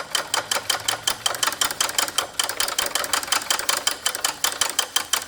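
3/8-inch ratchet clicking rapidly and evenly, several clicks a second, as it is worked back and forth to wind a drop-link nut off.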